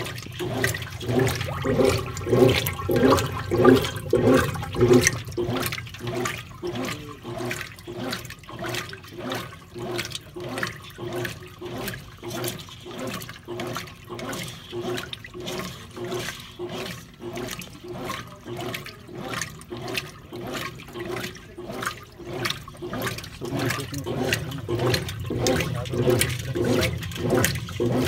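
Brastemp Clean BWC11 top-loading washing machine in its wash agitation, the agitator swinging back and forth and sloshing the clothes through water in an even, repeating rhythm. The swishes are strongest in the first few seconds.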